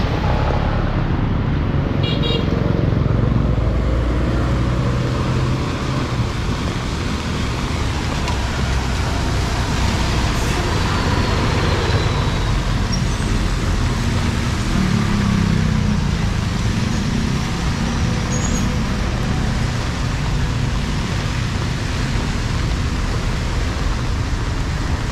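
Street traffic in the rain: vehicle engines running and passing under a steady hiss, with the engines heaviest in the first few seconds and again around the middle.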